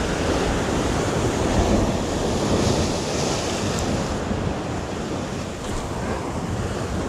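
Sea surf washing against rocks, with wind buffeting the microphone.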